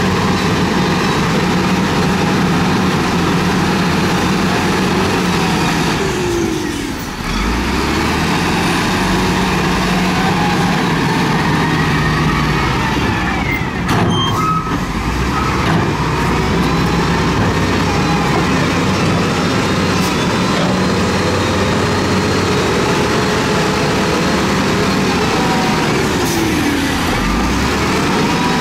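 Heavy diesel engine of a Matador ML50-1 wheel loader running steadily under load as it pushes rock, its level shifting a few times, with a brief dip about seven seconds in and a short break about halfway through.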